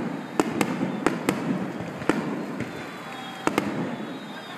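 Aerial fireworks bursting during a display finale: a run of sharp bangs, several in quick pairs, over a continuous noisy background.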